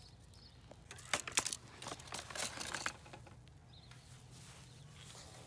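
A few short clinks and knocks as air guns are handled and set down on a plastic table, bunched together around the middle.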